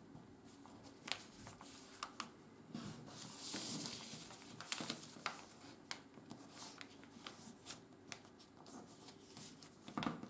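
Sheet of 80 g/m² office paper being folded and creased by hand on a wooden tabletop: faint scattered crinkles and taps, with a brief rustling swish about three to four seconds in.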